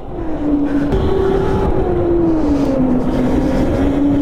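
Go-kart engine running under throttle, its pitch stepping up about a second in, easing off, then climbing again as the kart speeds up and slows.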